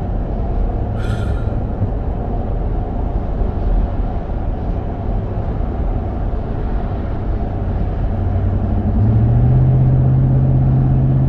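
Road noise inside the cabin of a Toyota Sequoia running on Mickey Thompson Baja Boss A/T all-terrain tires: a steady low rumble with a tyre hum. About nine seconds in, the hum gets louder and a little higher.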